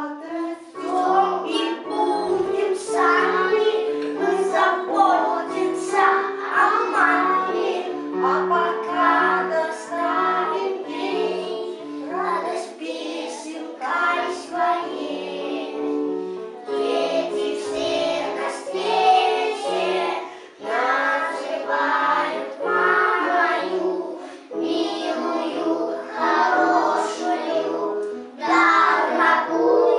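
A group of young children singing a song together in unison over an instrumental accompaniment with a regular, stepping melody line.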